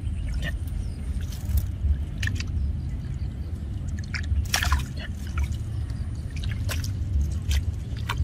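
Wet mud and water being worked by hand: squelching and dripping, with scattered short splashes and wet clicks, one larger slosh about halfway through.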